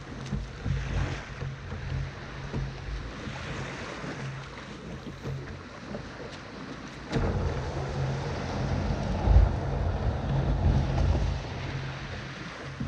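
Sea waves and wind buffeting the microphone, under a steady low hum. The low rumble grows heavier about seven seconds in, and there are a couple of sharp clicks.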